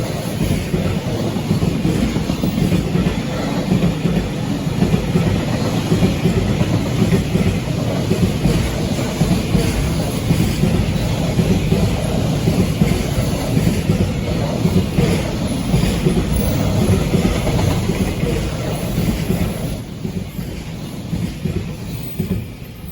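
JR Freight freight train's wagons rolling past close by, a loud steady rumble with the wheels clacking over the rail joints. It fades from about twenty seconds in as the end of the train goes by.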